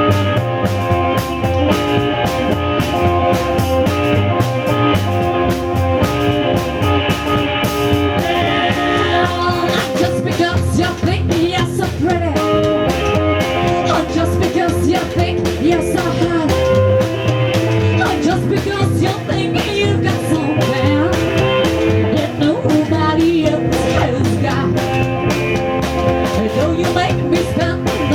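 Rock band song with electric guitar and drum kit: an instrumental opening, then a voice starts singing about ten seconds in.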